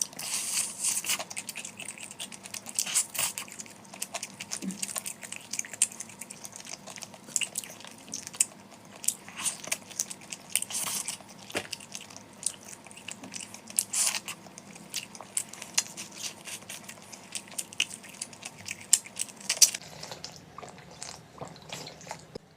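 A person eating close to the microphone: chewing and biting, with many short sharp clicks and crunches coming irregularly.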